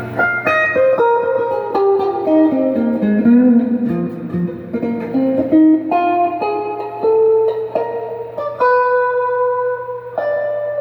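Donner DST200 electric guitar played through an amp: a single-note lick that runs down to the low notes and climbs back up, then longer held notes, with a steady low hum underneath.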